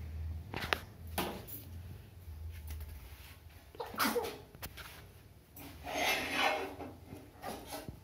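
A toddler's brief breathy vocal sounds, with scattered light knocks and taps from handling.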